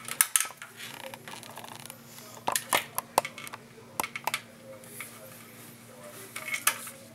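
Small metallic clicks and clinks of screws being fitted into a metal hard drive cage, coming in several short clusters.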